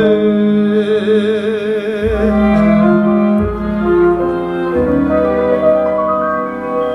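Operetta song with instrumental accompaniment: a man's voice holds the last note of a sung phrase with vibrato for about two seconds, then the accompaniment plays an instrumental interlude.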